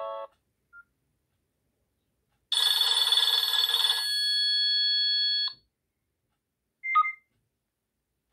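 Nokia 6680 mobile phone playing a ringtone that sounds like a ringing telephone bell: a single ring of about three seconds, starting buzzy and settling into a steady high tone that stops suddenly. A short beep follows near the end.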